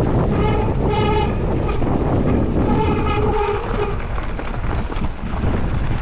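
Wind buffeting the helmet-camera microphone and the rumble of a mountain bike riding fast down a rough trail, with a few short droning tones around one second and three seconds in.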